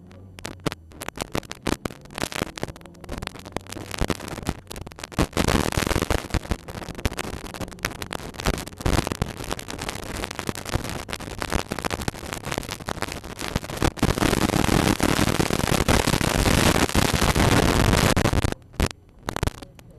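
Harsh crackling noise on the in-car microphone that buries the race car's engine. It grows louder about five seconds in, is loudest for the last few seconds, and cuts off sharply near the end.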